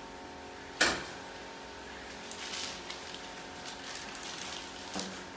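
A single sharp knock about a second in, then scattered scraping and handling noises and a second, lighter knock near the end, over a steady hum.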